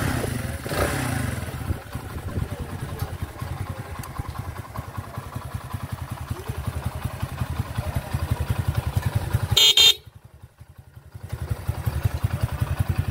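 A 50 cc motorcycle engine revs briefly just after starting, then idles with a rapid, even firing beat. About ten seconds in, the horn gives one short beep, and the engine sound drops out for about a second before returning.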